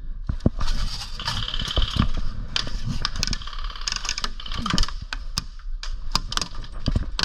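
Airsoft guns firing: rapid, sharp clicking shots in irregular bursts and single shots.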